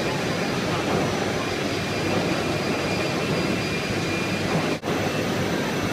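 Steady mechanical running noise from a basket tipping and dumping machine in operation. The noise cuts out for an instant about five seconds in.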